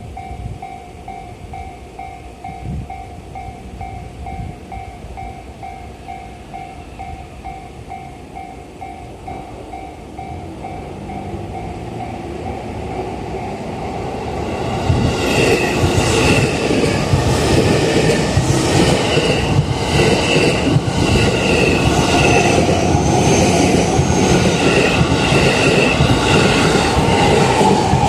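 Level-crossing warning bell ringing in an even repeated chime. About fifteen seconds in, a JR East E531 series electric train comes through the crossing, loud, its wheels clattering over the rails, with high ringing tones coming and going.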